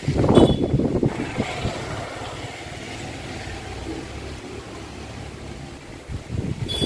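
Strong wind gusting against the microphone: a low rumbling buffet that swells just after the start, eases off, and swells again near the end.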